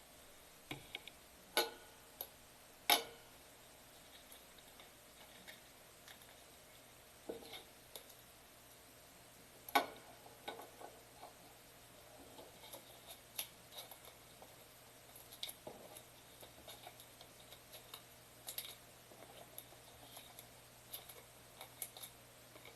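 Trading cards being handled and slid into plastic sleeves and top loaders on a table: scattered light clicks and taps of card and plastic. There are a few sharper knocks in the first ten seconds.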